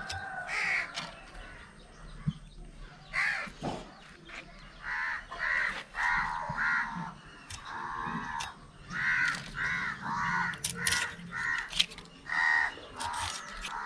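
Crow cawing over and over, a long series of short calls, with a few sharp clicks near the end.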